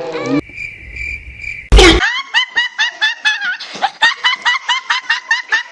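A steady high beep-like tone, cut off by a loud bang, then rapid high-pitched snickering laughter, about five quick syllables a second.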